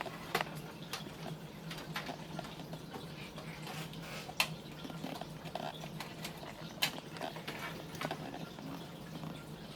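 Scattered small clicks and taps of computer case parts and a screw being handled, irregular and a second or two apart, over a steady low hum.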